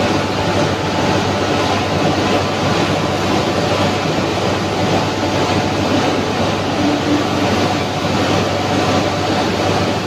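Steady din of an induction furnace melting SG iron in operation: a constant low hum under a broad, even mechanical noise.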